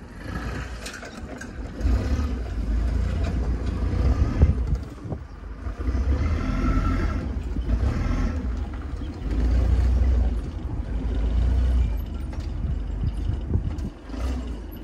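Forklift engine running as it carries a wooden crate to a pickup and lowers it into the bed, the low rumble swelling and easing in several long stretches.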